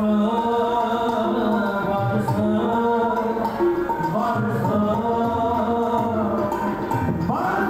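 Background music: a sung melody moving in held notes.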